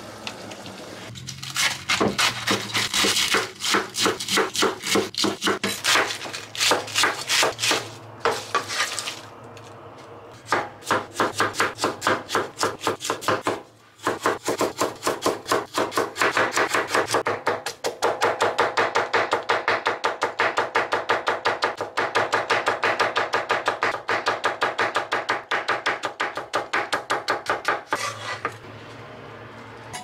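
Chinese cleaver slicing vegetables on a wooden cutting board: a fast, even run of knife strokes striking the board, with two short breaks partway through.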